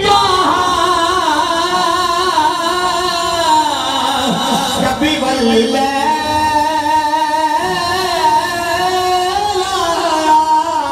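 A man's voice sings a naat (Urdu devotional poem) into a microphone, amplified over a PA loudspeaker. He draws out long, slowly wavering melismatic notes without words, and the melody shifts about seven and a half seconds in.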